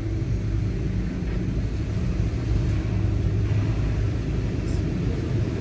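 Steady low engine rumble heard from inside a car as it creeps onto a ro-ro ferry's vehicle deck.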